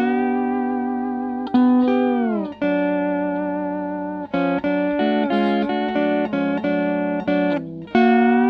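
Early Fender Pro steel guitar with new Nick Fryer pickups, played clean through a Fender Bassman amp. It rings out sustained picked chords, and about two seconds in the bar slides a chord smoothly down in pitch. After that comes a run of repeatedly picked chords.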